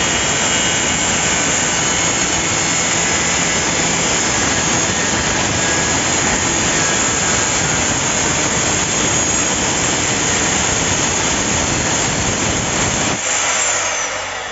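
Small circular saw running under load as its blade cuts through plywood, a dense steady whine. About 13 seconds in, the low part of the sound drops out as the cut ends, and the sound then starts to fall away.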